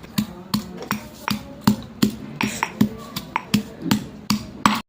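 A pestle pounding coriander seeds and ginger in a stone mortar, in steady strokes about three times a second.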